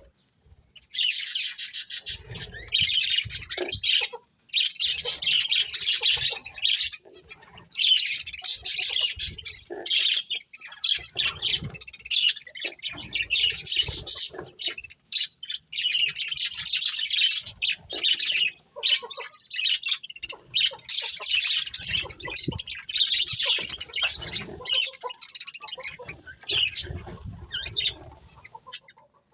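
A colony of budgerigars chirping and chattering in dense bursts of a second or two, with short pauses between them.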